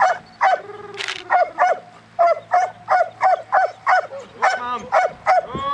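Dog barking in a rapid run of short, high yips, about three a second, without a break.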